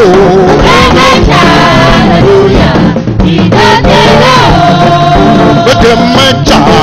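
Tiv praise song: a lead voice singing a melody with long held notes over a band with a steady beat.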